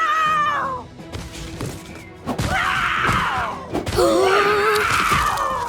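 Cartoon character voices making wordless, drawn-out vocal sounds in three stretches, the middle one rougher, over background music, with a few thuds between them.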